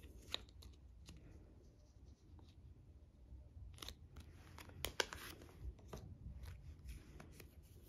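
Faint rustling and scattered soft clicks of a clear plastic photocard sleeve being handled and slid into a plastic binder page pocket. The clicks come thickest a little past the middle.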